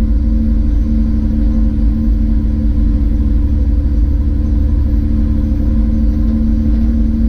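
Steady engine and road drone inside a moving car's cabin, the engine held at nearly full throttle while it is acting up; the driver blames a failing fuel injector.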